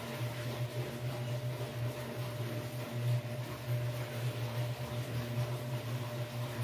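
Steady low hum of a running motor or appliance, with a thin steady whine above it.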